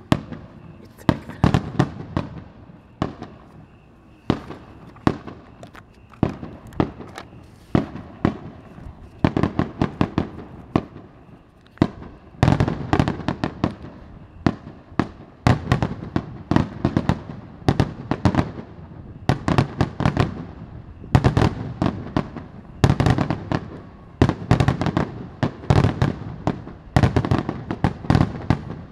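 Aerial fireworks shells bursting one after another, a string of sharp booms that come thick and fast from about twelve seconds in.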